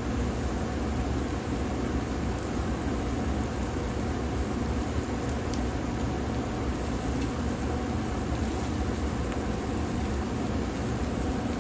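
Food sizzling on the grate of an open kamado grill under a steady low rumble, with a couple of light clicks from metal tongs around the middle.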